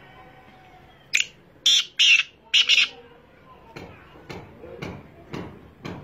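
Black francolin (kala teetar) calling: five loud, harsh notes over about two seconds, a single note followed by two close pairs. After a pause a softer, regular beat of about two strokes a second follows.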